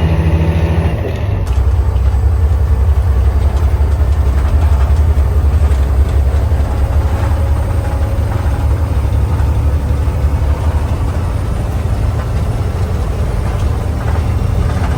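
Diesel semi truck engine running, heard from inside the cab as a steady low rumble, with a slight shift in the sound about a second and a half in.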